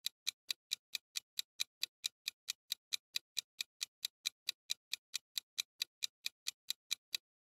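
Clock-tick sound effect for a countdown timer: even ticks at about four to five a second, stopping shortly before the end.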